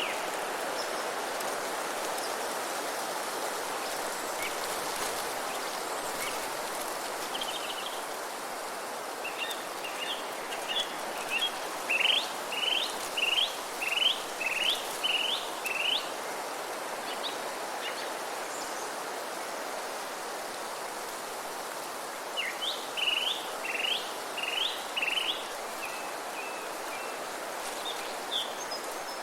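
Wind blowing steadily through forest trees, with a songbird singing runs of quick rising notes, about two a second, once around a third of the way in and again about three-quarters through.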